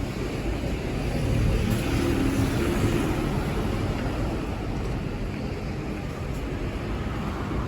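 Steady low rumble of road traffic, swelling for a moment a couple of seconds in.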